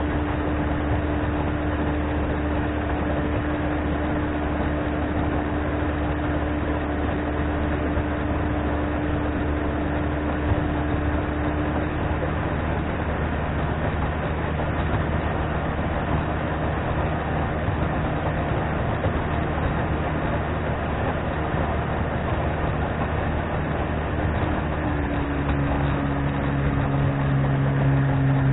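1997 Johnson 25 two-stroke outboard motor running at speed, pushing a small aluminium boat, over a steady rush of wind and water. Its pitch shifts slightly about halfway through and again near the end, where it grows a little louder.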